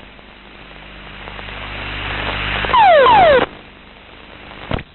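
A jet's ejection sequence heard from the cockpit: a rushing noise builds for about two and a half seconds, then a very loud half-second burst with several tones falling sharply in pitch, followed by quieter rushing and a single sharp knock near the end.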